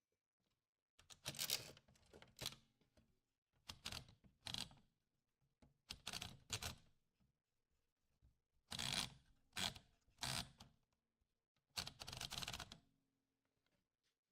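Old manual typewriter handled between bouts of typing: a series of short rasping mechanical bursts, in small clusters a second or two apart.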